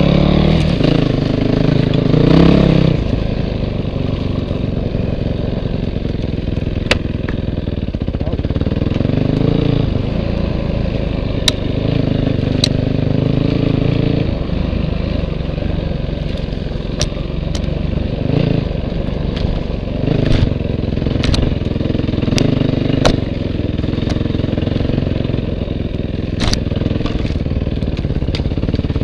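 Dirt bike engine running under way, its revs rising and falling with the throttle, loudest in the first three seconds. Sharp clacks and knocks come now and then, about ten in all.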